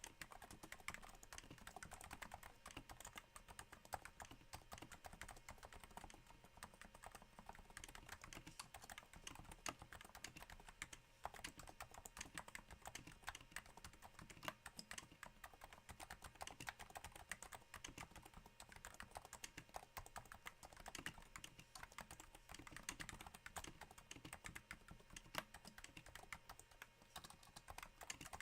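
Continuous typing on a Cooler Master NovaTouch keyboard with Topre-type capacitive switches damped by Hypersphere silencing rings, on a thin desk mat: a quiet, steady stream of soft keystrokes that sounds a little like rain.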